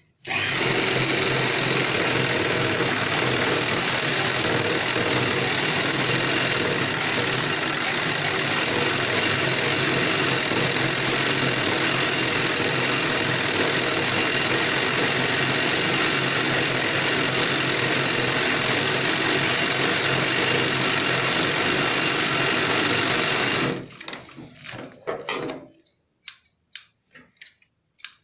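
Chauhan sewing machine stitching a seam at a steady speed. It stops about 24 seconds in and is followed by a few short clicks and knocks.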